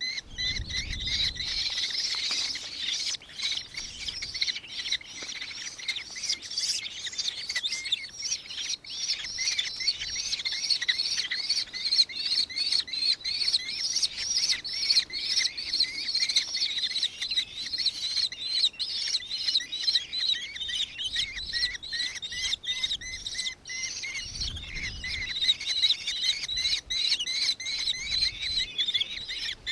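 Birds chirping and twittering continuously, a dense run of short, high, quick notes with no pause.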